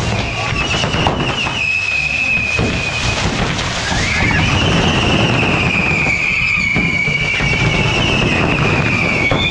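Whistling fireworks on a burning pyrotechnic figure. A continuous high whistle sags slowly in pitch, and a second whistle swoops up and joins it about four seconds in. Under them runs a steady loud hiss and crackle, broken by a few sharp pops.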